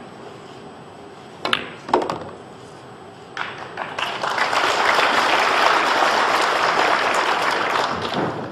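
Pool cue striking the cue ball, then a sharp click about half a second later as the cue ball hits the 8-ball. About two seconds later audience applause begins and runs for about four seconds, greeting the potted 8-ball.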